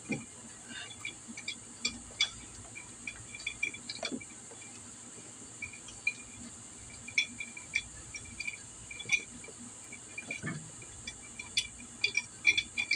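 Scattered light metal clicks and knocks as a big-bore cylinder is worked down over the piston and its hand-compressed rings onto the studs of a GY6 scooter engine, with a few duller knocks near the start, about four seconds in and about ten seconds in. Insects chirp steadily behind.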